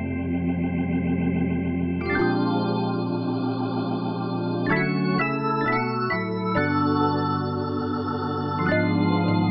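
Organ sound from a keyboard sound library playing sustained chords. It holds one chord for about two seconds, then changes chords several times in quick succession in the middle, and settles on a long held chord near the end.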